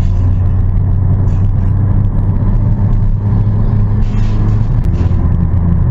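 Car engine running steadily at near-constant revs, with a brief hiss about four seconds in.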